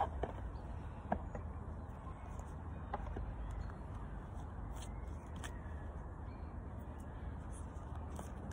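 Crows cawing now and then over a steady low outdoor rumble, with a few faint clicks from a deck of cards being handled and split.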